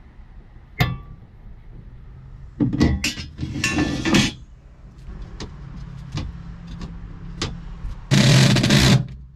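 An aluminum floor grate being handled into the boat: a sharp click, then a stretch of metal clattering and scraping, and a few light knocks. Near the end a power drill runs at a steady speed for about a second, fastening it into the fiberglass.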